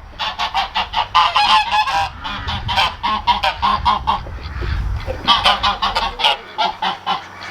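Domestic geese honking loudly in a rapid, overlapping series of short calls: alarm honking at a person approaching their pen, the geese acting as watchdogs.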